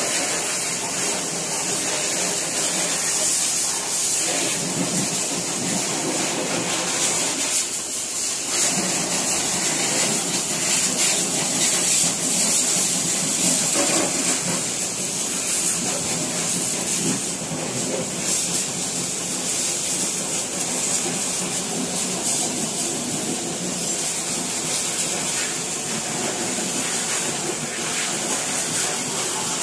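Air-fed spray gun hissing steadily as it sprays paint onto a car's underbody (chassis painting).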